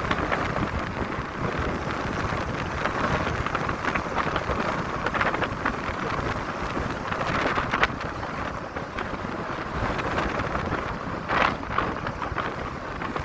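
Wind buffeting the microphone over the steady noise of road traffic, with a short louder noise about eleven seconds in.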